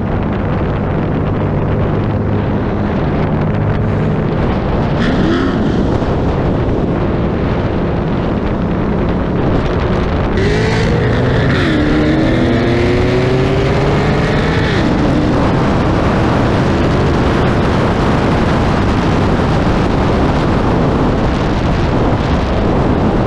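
Wind rushing over a car-mounted action camera at road speed, with car engines running underneath. Engine pitch rises about five seconds in and again from about ten to fifteen seconds in.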